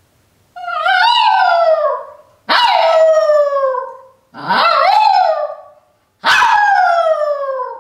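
Miniature poodle howling when left alone at a closed door: four drawn-out howls in a row, each starting higher and sliding down in pitch.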